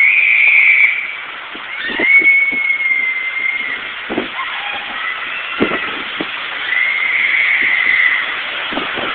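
Strong tornado wind rushing steadily, with low buffets on the microphone and a high tone that swells and fades three times.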